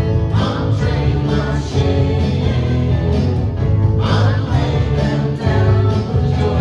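Live worship band playing with voices singing, guitar and a strong bass line.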